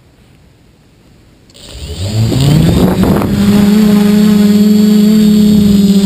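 Quadcopter's electric motors and propellers spinning up from rest about a second and a half in, a loud whine rising in pitch as the quad lifts off, then holding a steady pitch.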